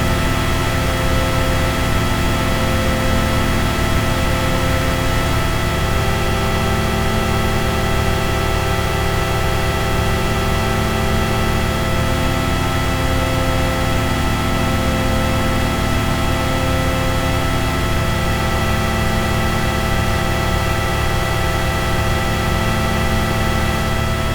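Ambient drone music: a dense wash of noise with many held tones over it, the lower notes shifting slowly every few seconds.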